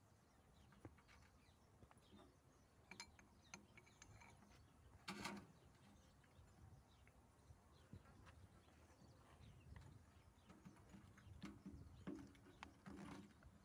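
Near silence with faint scattered clicks and clinks of brass bushing studs and porcelain low-tension bushings being handled and fitted on a transformer tank, a slightly louder clink about five seconds in.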